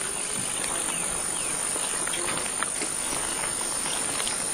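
Tropical forest insect chorus: a steady, high-pitched shrill trill from crickets or similar insects, with scattered faint clicks and a couple of brief rising chirps about a second in.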